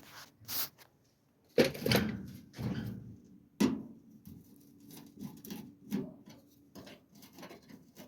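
Scattered clicks and knocks of hand tools and screws being worked at the top of a Kenmore electric dryer, with a louder clunk about two seconds in and another sharp knock at about three and a half seconds.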